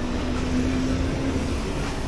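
A car driving on a rain-soaked street: a steady hiss of tyres on wet pavement over a low road rumble, with a steady hum that fades out after about a second and a half.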